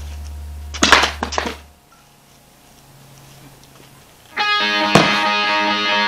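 A carpeted cat tree post thrown like a javelin lands with a few loud thumps about a second in, over a low steady hum that cuts off suddenly. From about four seconds in, guitar-based rock music plays.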